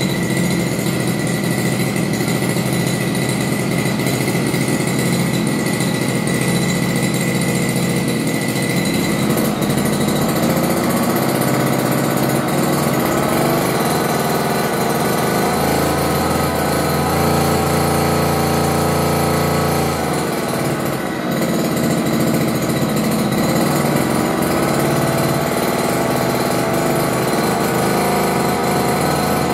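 Ryu brush cutter's small two-stroke engine running on its first test, steady and loud. Its speed changes several times: it picks up from about ten seconds in, holds higher, then drops back around twenty seconds before picking up again.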